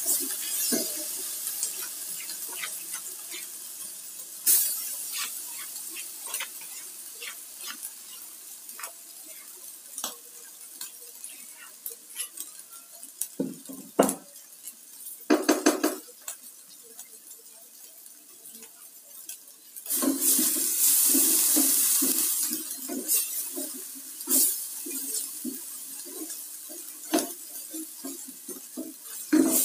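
Hot oil sizzling in a nonstick pot while a spatula stirs and scrapes against it, with light knocks and a short clatter midway. About twenty seconds in the sizzling jumps much louder as ground chili paste hits the hot oil, with quick scraping stirs.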